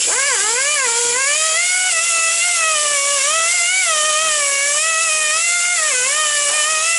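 Handheld power tool with a buffing wheel whining at high speed as it cleans the flat gasket surface of a VW 1.8T cylinder head. Its pitch wavers and dips briefly about a second in and near six seconds, as the wheel is pressed against the metal, over a steady hiss.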